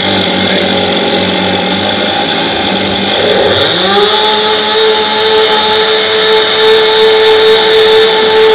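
STIHL two-stroke chainsaw running at a low, steady speed, then revving up to full throttle a few seconds in and holding there, with its bar resting on a pair of chainsaw chaps in a chaps cut test.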